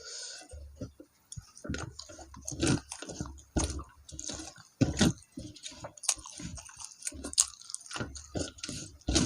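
A person chewing a mouthful of food close to the microphone: irregular wet chewing and mouth noises, roughly one or two a second.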